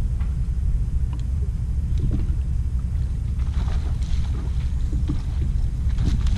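Steady low rumble of wind and water around a bass boat sitting on the lake, with a few faint ticks and taps on board.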